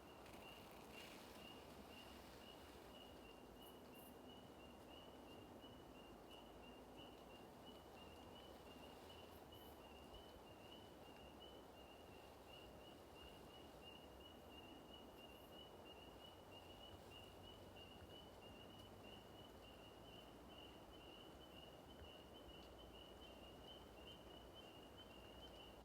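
Quiet outdoor ambience: a low background hiss with a faint, steady, high-pitched pulsing trill.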